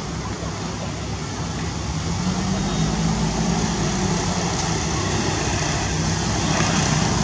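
Steady drone of motor traffic, with an engine's low hum swelling about two to four seconds in as a vehicle passes.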